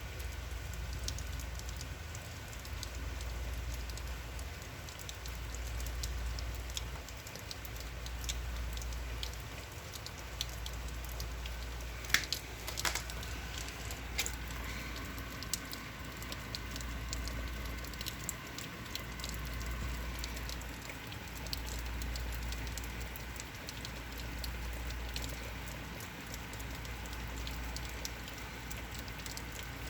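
Steady rain falling, with many small drops pattering and ticking, over a low rumble that swells and fades every couple of seconds. A couple of sharper clicks about twelve seconds in.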